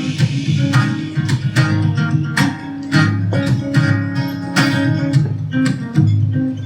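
Live band playing an instrumental introduction, led by a plucked guitar picking notes in a steady repeating pattern over bass.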